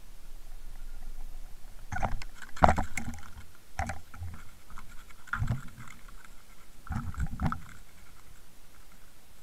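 An underwater camera rig on its fishing line knocking and scraping against a boat's gunwale and hull as it is hauled aboard: clusters of thumps about two, four, five and a half and seven seconds in, the loudest near three seconds.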